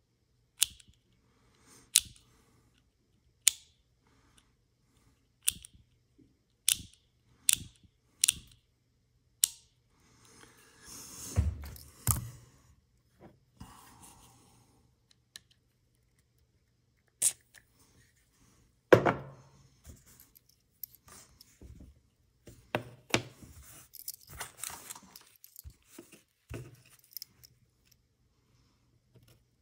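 Push buttons of a Tektronix 7904 oscilloscope's lit switch assembly being pressed by hand, giving a string of sharp clicks, about one a second at first, with handling and rubbing of the part in between and one louder knock about two-thirds of the way through. The buttons are sticky, being worked free after a dose of WD-40.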